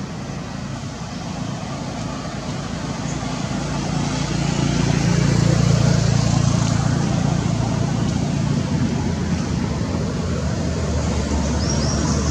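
Traffic noise with a motor vehicle's engine passing, growing louder to a peak about halfway through and then easing off. A few short high chirps near the end.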